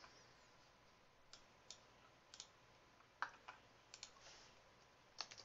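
Faint, scattered clicks from a computer mouse and keyboard, about one every half second to second. A quicker run of key clicks starts near the end.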